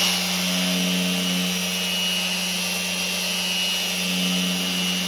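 Bosch GET75-6N random orbit sander running in turbo mode, its 150-grit disc working across an epoxy-and-wood slab: a steady motor hum with a high, even whine.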